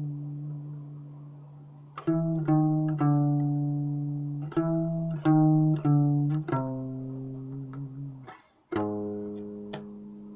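Guitar playing a slow blues line: single plucked notes and pairs of notes, each ringing and fading, with a brief break a little after eight seconds and a last note about nine seconds in that is left to ring out.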